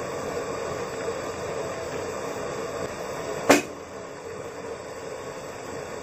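Steady hiss of seafood cooking in a metal wok, with a single sharp clank about three and a half seconds in.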